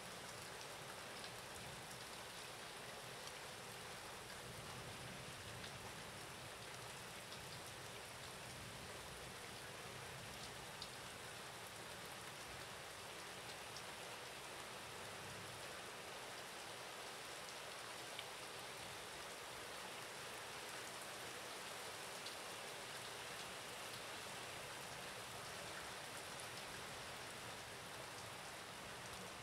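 Steady rain falling as an even hiss, with a few faint ticks of drops here and there.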